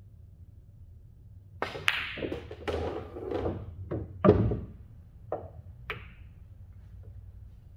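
A pool shot on a Diamond table: the cue tip clicks against the cue ball, balls knock together, and balls roll and strike cushions, with a loud heavy thud partway through as an object ball drops into a pocket. Two lighter clicks follow near the end.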